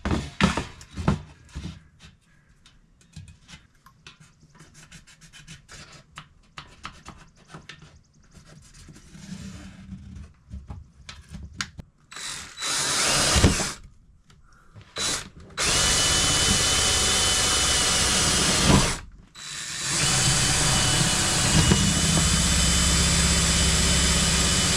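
DeWalt cordless drill drilling holes through the camper wall: a short burst, a brief one, then two long steady runs of about three and five seconds with a constant whine. Before it, scattered light clicks and rubbing of handling.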